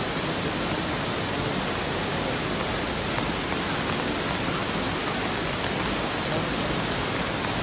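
Ravana Falls in spate, a heavy flow of muddy water pouring down its rock tiers: a steady, unbroken rush of falling water.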